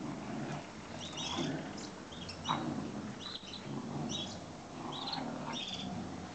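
Two Giant Schnauzers growling in play as they tug over a cloth, with low growls about once a second and short high squeaks in between. A sharp, falling yelp comes about midway.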